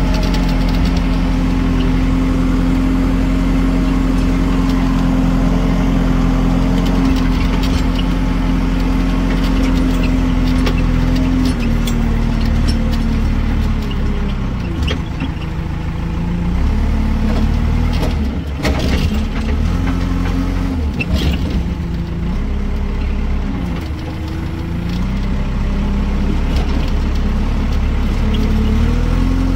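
Heavy diesel engine of farm machinery running steadily at constant speed. From about twelve seconds in, its revs drop and rise again several times as it works under changing load, with a few sharp clanks around the middle.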